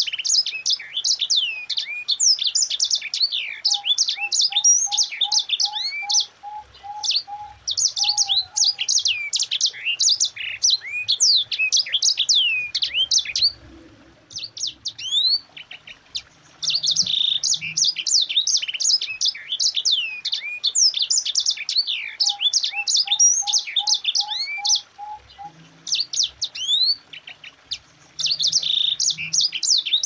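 Sanger (white-rumped seedeater) singing a dense, rapid rolling song of high sweeping notes in long phrases, broken by two short pauses.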